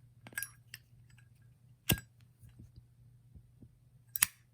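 Metal clicks and clinks of a Zippo lighter being handled: a few light ticks at first, one sharp click about two seconds in, and a quick double click near the end, over a low steady hum.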